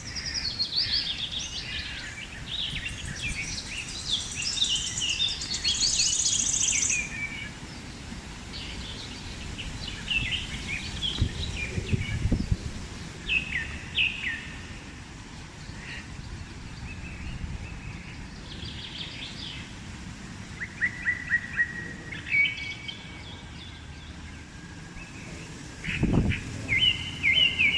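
Several birds chirping and calling in quick overlapping bursts for the first seven seconds, then in sparser calls, over a steady low rumble of wind buffeting the microphone. There is a low thump near the end.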